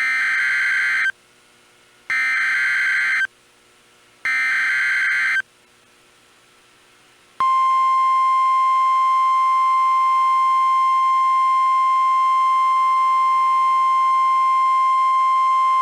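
NOAA Weather Radio alert signal: three short bursts of buzzing SAME digital header data, each about a second long and a second apart, then from about seven seconds in a single steady 1050 Hz warning alarm tone. The tone announces a tornado warning about to be read.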